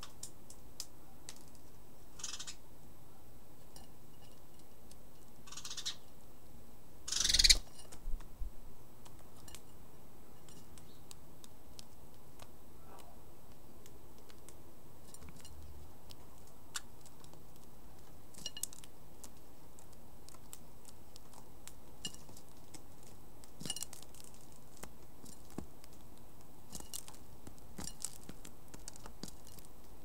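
House sparrow pecking mixed birdseed in a terracotta saucer: scattered small clicks and ticks at an uneven pace, with a brief louder rustle about seven seconds in.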